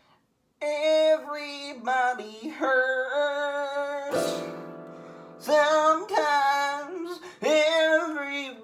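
A young man singing high, drawn-out notes that slide up and down in pitch. For about a second and a half in the middle there is a lower, buzzier held tone.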